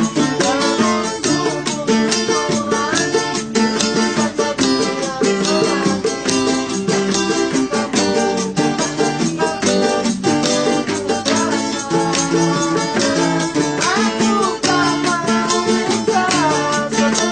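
Acoustic guitar strummed in a quick, steady dangdut rhythm, with a voice singing a melody over it at times.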